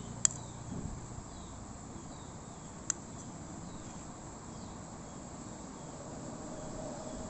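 Steady background hiss with faint, short chirps repeating every second or so, and two sharp clicks, one just after the start and one about three seconds in.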